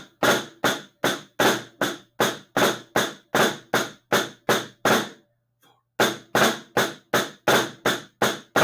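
Drumsticks playing a snare-drum exercise on a practice pad: an even run of sharp strokes, about three a second, with one short break about five seconds in.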